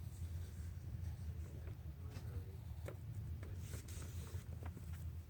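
Pencil scratching on paper in light strokes as a drawing is sketched, over a steady low hum.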